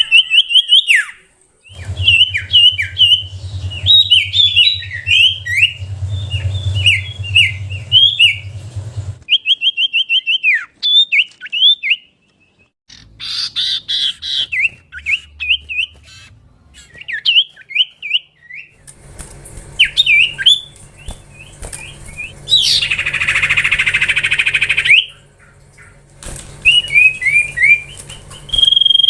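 Common iora (cipoh) singing: rapid runs of short whistled chirps and trills, broken by short pauses, with a harsh rasping burst about two-thirds of the way through.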